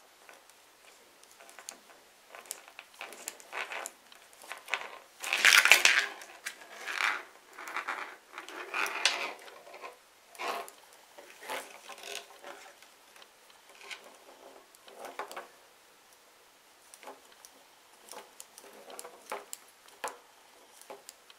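Metal circular knitting needles clicking and scraping against each other as stitches are knit, with yarn rustling in the hands. The clicks come irregularly, the loudest of them about five to six seconds in.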